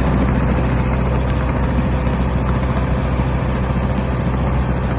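Tucker Sno-Cat's Isuzu 4BD1T turbo diesel engine running steadily, a loud even drone with a constant low hum.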